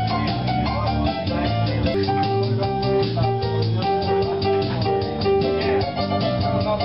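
Music with guitar and drums playing at a steady beat.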